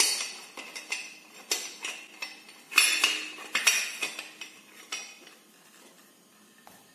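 Metal clinking and knocking as a steel C-clamp valve spring compressor is worked off a motorcycle cylinder head once the split collars are seated: a run of sharp clinks, loudest about three and four seconds in, dying away after about five seconds.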